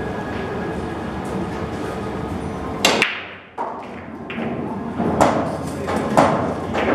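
Pool break shot: the cue ball hits the rack with a sharp crack about three seconds in. Several more separate knocks follow as the balls strike each other and the rails.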